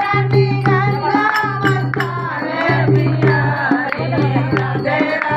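Women singing a Hindi devotional bhajan together to a steady beat on a dholak barrel drum.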